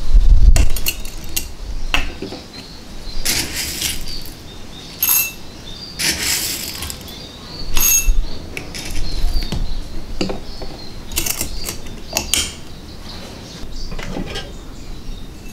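Clamp-lid glass jar of coffee beans being opened with a thump, then coffee beans scooped out and tipped into a small glass tumbler: several short rattling pours of beans, clicks of the scoop and brief glass clinks that ring.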